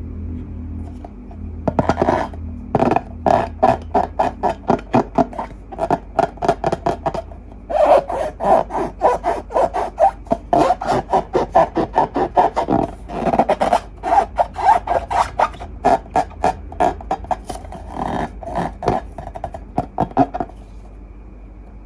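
Quick repeated rubbing and squishing strokes from hands working slime and balloons, a few strokes a second, in runs with short breaks.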